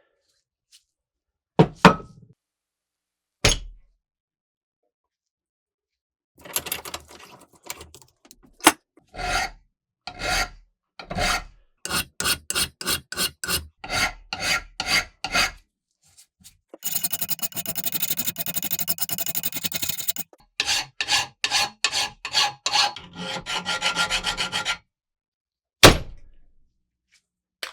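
Hand rasping and scraping on the rusty antique french fry cutter's parts during rust removal: steady back-and-forth strokes about two a second, a stretch of faster continuous scrubbing in the middle, and a few single knocks near the start and end.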